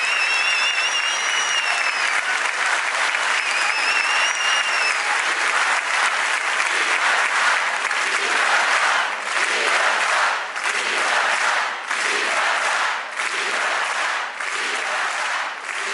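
Large crowd applauding and cheering, with two high, arching whistles in the first few seconds. From about the middle on, the clapping dips and thins out several times.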